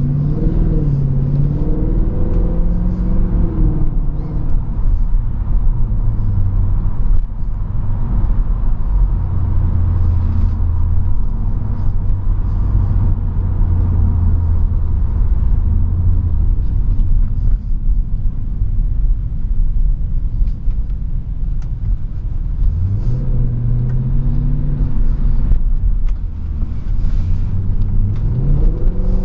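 Mercedes-Benz C63 AMG (W204) naturally aspirated 6.2-litre V8 heard from inside the cabin while driving. The revs rise and fall through the first few seconds, then settle into a steady low engine note while cruising. The engine note climbs again about 23 seconds in and once more near the end as the car accelerates.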